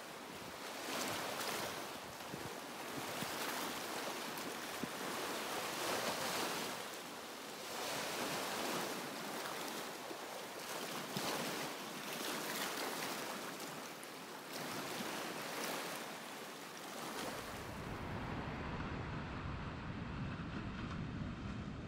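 Sea waves breaking and washing over a rocky shoreline, surging every couple of seconds. Near the end it gives way to a deeper, steadier rumble of surf on a sandy beach.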